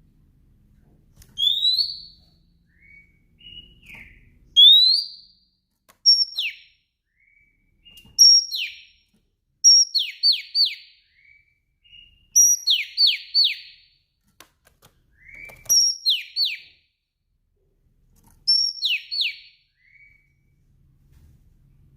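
Female oriental magpie-robin calling in repeated whistled phrases. It starts with two rising whistles, then gives a short high note followed by two or three quick falling whistles every couple of seconds, with softer short notes between the phrases.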